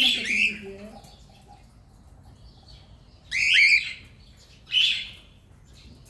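Cockatiels calling: a loud call at the start, then a longer call about three and a half seconds in and a short one near five seconds.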